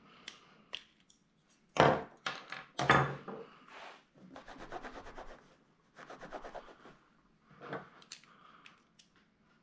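Hands working small plastic and metal parts of an RC truck's steering assembly at the bench: two sharp knocks, then runs of rapid clicking with rubbing and scraping, and a few more light knocks near the end.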